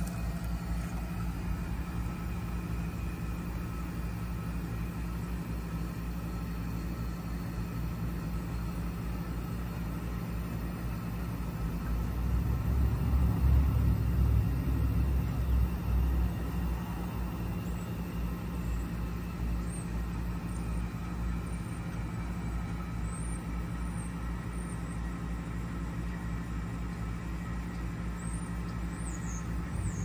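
2014 Payne PH13 2.5-ton heat pump outdoor unit running in heating mode: a steady low hum from the compressor and condenser fan, with a few steady higher tones. The low rumble swells louder for a few seconds in the middle.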